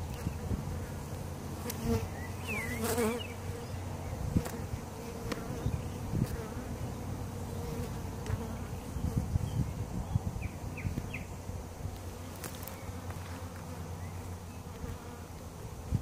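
Swarm of honey bees buzzing steadily as they cluster and fly around a Langstroth hive while being hived.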